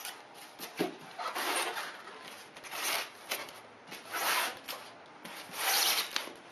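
Styrofoam packing blocks rubbing and scraping against each other as one is worked out of the foam tray, in several short bursts with a brief squeak about a second in; the loudest scrape comes near the end.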